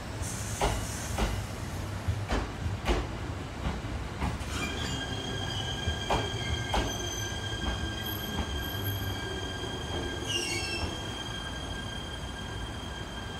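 JR East E127 series electric train rolling past as it pulls in, its wheels knocking irregularly over rail joints, then a high steady squeal from about four seconds in that holds to the end, with a short falling squeal about ten seconds in, as the train brakes.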